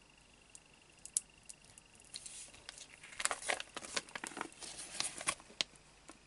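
Clear plastic sheet crinkling and crackling as it is lifted and handled, a quick run of crackles starting about two seconds in and dying away near the end.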